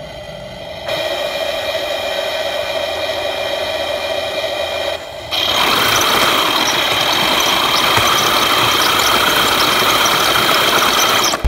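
Heng Long King Tiger RC tank's electronic engine sound idling steadily. About five seconds in it gets louder as the tank drives forward, its motors and tracks running.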